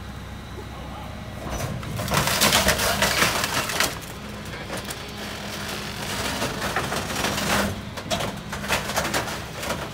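Rear-loader garbage truck running, its hydraulic packer cycling and crushing storm debris in the hopper, with loud crackling and crunching from about two to four seconds in and again near the end.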